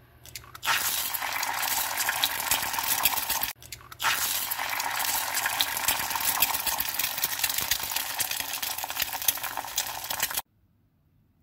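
An egg frying in plenty of hot oil in a pan, sizzling and spattering with a dense crackle, almost deep-frying. The sizzle breaks off briefly about three and a half seconds in and cuts off suddenly near the end.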